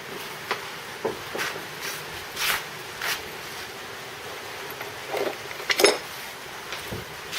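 Steel trunnion parts being handled: a series of short scrapes and light knocks, with a sharper metal clank about six seconds in.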